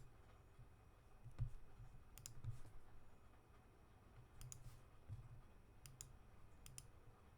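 Faint computer mouse clicks at irregular intervals, a handful over several seconds, with a few soft low thumps, over near-silent room tone.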